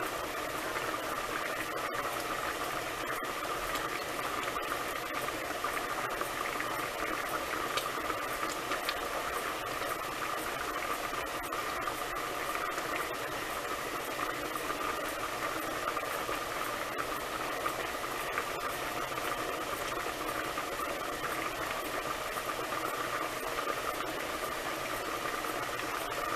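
Ham hocks at a rolling boil in a pot with its glass lid set ajar: steady bubbling with many small pops.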